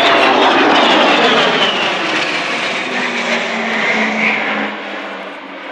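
Avro Vulcan bomber's four Olympus jet engines as it flies past, the engine whine sliding down in pitch as it goes by. The noise eases off near the end.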